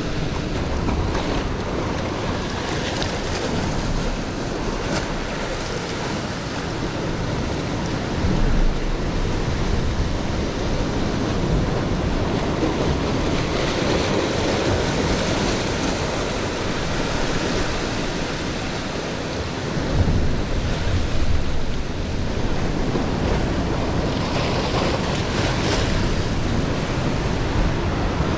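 Sea surf washing and breaking against the rocks, with wind buffeting the microphone. It is a steady rush that swells louder about eight seconds in and again around twenty seconds in.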